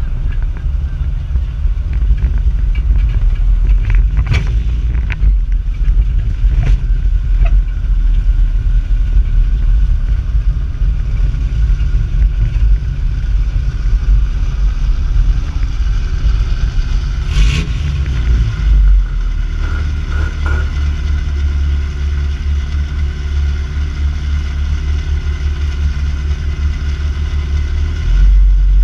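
Engine of a 2WD Toyota 4Runner dirt-track race truck running hard, heard from inside the cab as a loud, deep drone. A few sharp knocks and rattles of the body and cage come through, the loudest about two-thirds of the way in.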